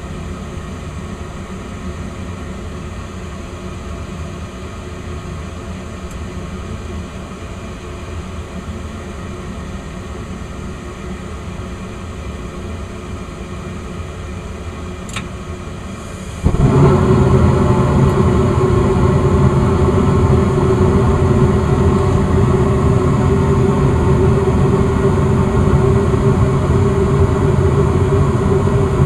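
Two-stage Westinghouse gas furnace starting a heating cycle: its draft inducer runs steadily, then about 16 seconds in the burners light, with a sudden jump to a much louder, steady burner noise carrying a hum. The circulation blower has not yet started.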